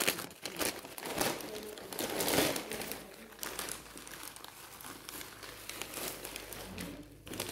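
Plastic courier mailer bag crinkling and rustling as it is opened by hand and a T-shirt in a plastic sleeve is pulled out of it. The crinkling is loudest about two seconds in.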